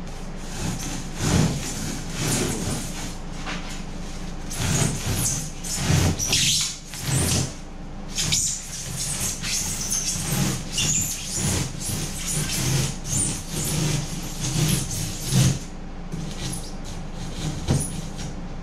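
Hand saw cutting through pink extruded polystyrene foam board in a long run of back-and-forth strokes, uneven in pace. It eases off near the end as the cut piece comes free.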